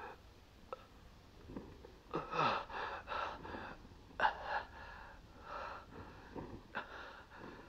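A man gasping and groaning in pain after being beaten, in a string of short strained cries, several of them falling in pitch.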